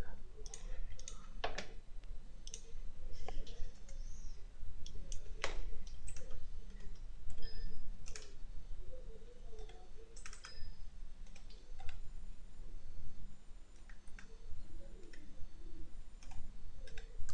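Computer mouse clicks and keyboard keystrokes, coming at irregular intervals as separate sharp clicks over a low steady hum.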